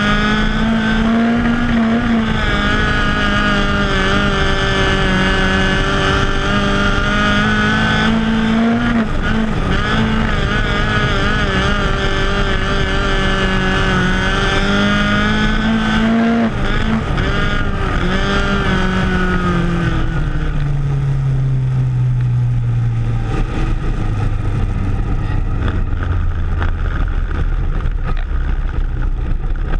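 Onboard sound of a USAC Ignite midget's Ford Focus four-cylinder engine running hard at a high, fairly steady pitch, with small lifts and pick-ups. About two-thirds of the way through, the engine note falls steadily as the car slows, then settles into a low, steady drone.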